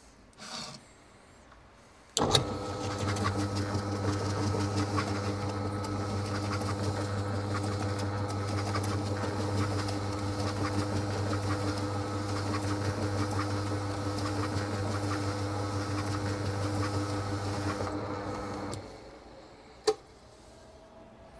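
Bowling ball spinner's electric motor running while a wet green Scotch-Brite pad scrubs the spinning ball: a steady hum with a scratchy hiss over it. It starts suddenly about two seconds in, runs for about sixteen seconds (one timed side of the sanding), winds down near the end, and is followed by a single sharp click.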